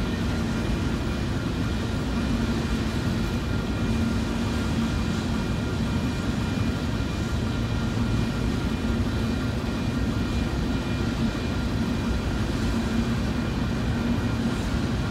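A long freight train rolling past: a steady, heavy rumble of wheels on rail with a low hum and faint, steady high ringing tones from the wheels.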